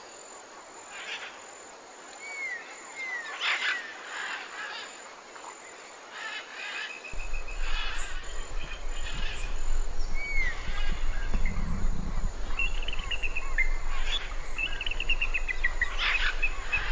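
Assorted small birds chirping and calling in short whistled notes and trills over an outdoor natural ambience. A low steady rumble comes in about seven seconds in.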